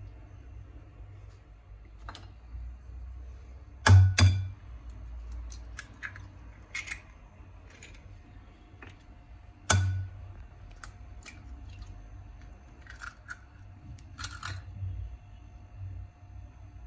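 Kitchen utensils and dishes being handled, giving scattered clicks and knocks. The loudest are a double knock about four seconds in and a single knock near ten seconds.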